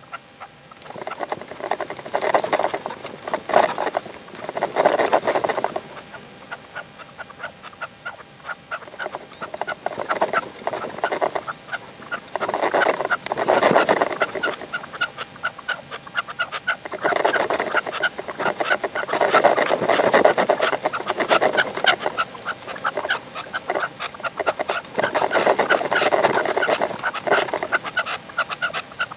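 Red-legged partridges calling in repeated bouts of rapid chattering notes, each bout lasting one to two seconds with a few seconds between them. This is the calling of a caged decoy partridge with a wild bird that has come to it.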